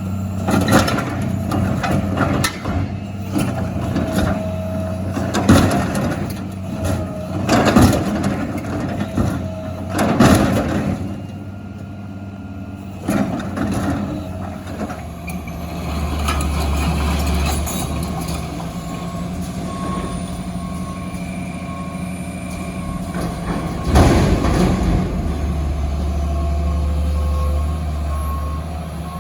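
Heavy diesel machinery running, with repeated loud bangs and crashes of metal dumpsters being crushed in the first half and one more loud bang later. A reversing alarm beeps at an even pace through the second half.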